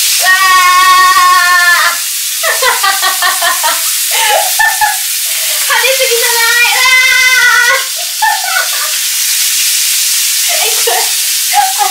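Chicken pieces frying in hot oil in a frying pan, sizzling steadily. Over it, a woman's voice in long drawn-out sounds near the start and again in the middle, with shorter bits in between.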